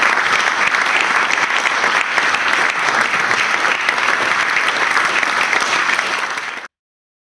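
Audience applauding: dense, steady hand-clapping that cuts off suddenly near the end.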